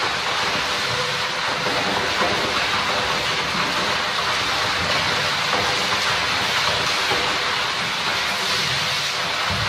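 Continuous splashing of water in a plastic kiddie pool as a gorilla spins and slaps through it, a steady wash of spray.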